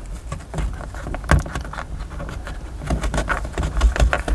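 Fingertips pushing a thin dash-cam power cable into the gap along the edge of a car's headliner: irregular scuffs and clicks of fingers and cable on the trim, over a low rumble.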